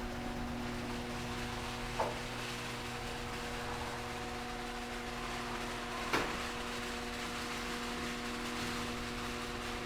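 Genie garage door opener motor running as it drives the door, a steady even hum with two light clicks about two and six seconds in. The hum cuts off suddenly at the end as the door finishes its travel.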